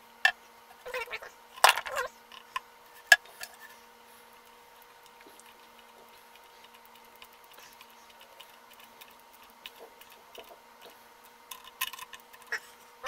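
Small screwdriver driving the tiny screw that holds a machine head into a wooden ukulele headstock: a few sharp clicks and knocks of the tool and hardware, with quiet stretches between.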